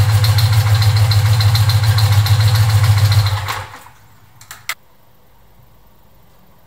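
1986 BMW R65's air-cooled flat-twin engine idling with an even low pulse, then stopping about three and a half seconds in, dying away over half a second. Two short clicks follow about a second later.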